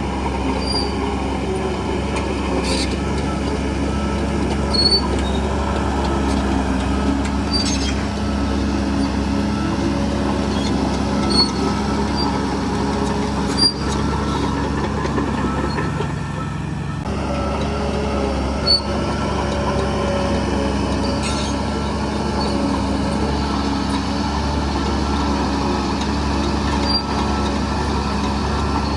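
Heavy earthmoving machinery's diesel engine running steadily, with short metallic clanks every few seconds.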